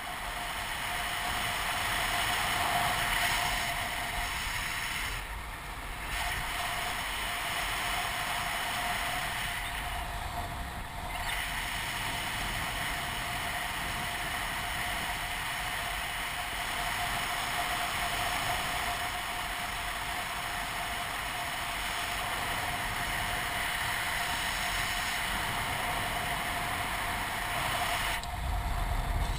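Paramotor engine running steadily at a constant pitch, mixed with wind noise.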